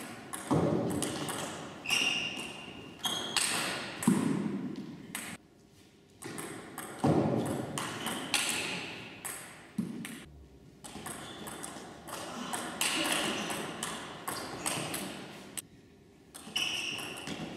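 Table tennis ball clicking sharply off rackets and the table in fast rallies, several points in a row with short pauses between them, each hit ringing briefly in the hall.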